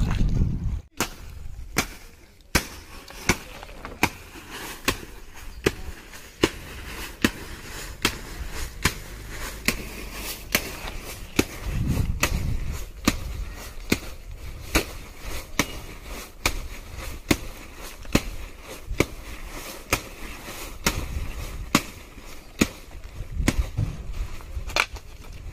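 A steady series of sharp knocks, evenly spaced at a little more than one a second, starting about a second in.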